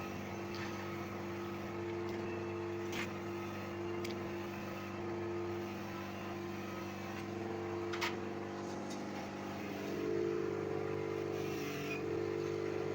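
A machine running steadily with a low, even hum that gets louder about ten seconds in. Two light clicks come about three and eight seconds in.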